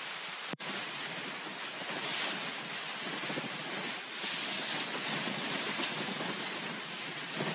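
Wind and heavy rain on a tent's fabric, heard from inside the tent: a steady rushing hiss that swells with gusts about two seconds in and again from about four seconds.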